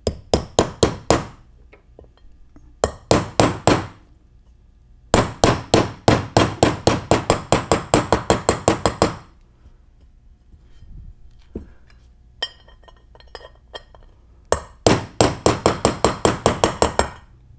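Ball-peen hammer tapping a steel socket that drives an oil seal into the bore of a Muncie 4-speed transmission's aluminium side cover. There are four runs of quick taps, about six a second; the longest run lasts about four seconds.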